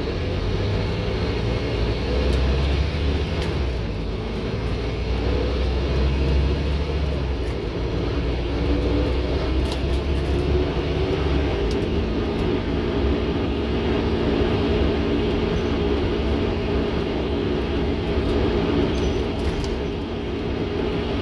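Scania N230UD OmniCity bus's five-cylinder diesel engine and drivetrain running under way, heard inside the saloon: a steady low drone, with a steady whine joining about twelve seconds in. The uploader calls the bus a tired, worn-out old beast.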